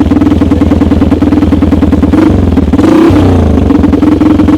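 Engine of a homemade tracked snowmobile running loudly with a fast, even pulse; the revs dip and climb again about two seconds in.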